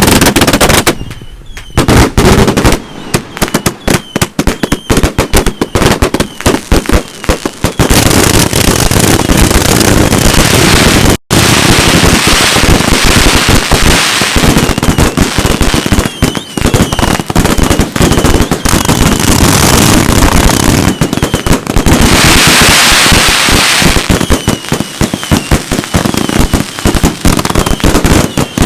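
Consumer firework cakes firing in a dense, nearly continuous barrage of shots and bursts, with stretches of crackling.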